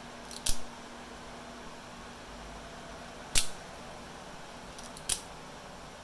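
Pen-style double-action out-the-front automatic knife firing three times, each a sharp metallic snap as the spring drives the blade out or back: about half a second in, a little past halfway (the loudest), and near the end. Faint ticks come just before the first and last snaps.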